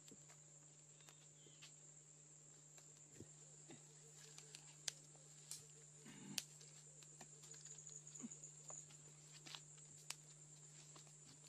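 Quiet outdoor ambience: a steady high-pitched insect drone over a low hum, with scattered faint clicks and taps. The sharpest taps come around five to six and a half seconds in.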